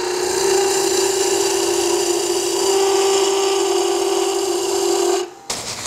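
Wood lathe running with a skew chisel shaving along a spinning wooden handle: a steady cutting hiss over a steady hum. It cuts off abruptly a little after five seconds.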